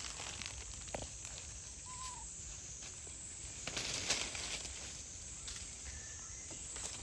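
Outdoor ambience with irregular rustling and scuffling, a sharp click about a second in, and a brief faint chirp-like call about two seconds in.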